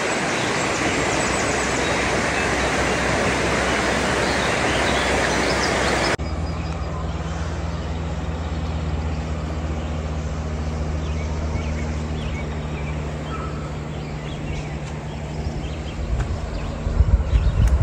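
Creek water rushing over shallow rapids, a loud steady hiss. After a cut about six seconds in comes a steady low mechanical hum at one fixed pitch, like an idling engine or motor, with a few low bumps near the end.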